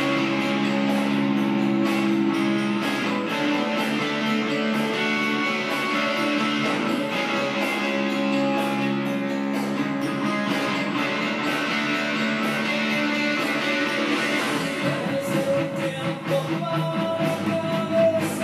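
Sunburst Les Paul-style electric guitar playing held, ringing chords, turning to quicker, choppier picked notes about fifteen seconds in.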